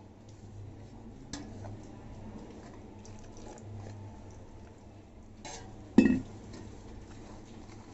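A hand mixing crumbly flour and ghee in a stainless steel bowl: soft rustling and scraping of fingers against the steel. About six seconds in comes one sharp metallic clink of steel bowls knocking together, with a short ring.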